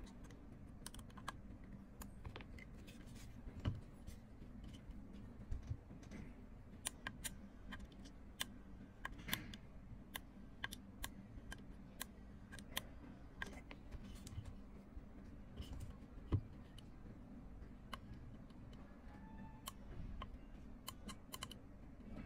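Light, irregular clicks and taps of small metal parts (thin steel rods, a brass clamp and screws) being fitted and tightened on an automatic key-presser's arm and handled against a computer mouse.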